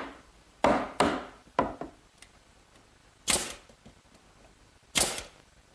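A mallet knocks three times on a wooden frame, seating its half-lapped cross members. Then a pneumatic nail gun fires twice, about a second and a half apart.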